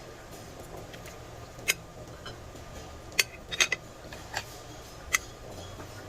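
A handful of light, sharp clinks of utensils against dishes at a table, spread irregularly, over a steady low background hum.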